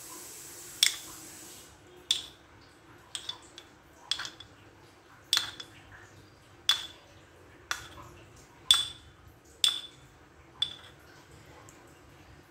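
A spoon clinking against the dishes about a dozen times, roughly once a second, each a short ringing tap, as mint chutney is scooped from its pot and dabbed over the chaat.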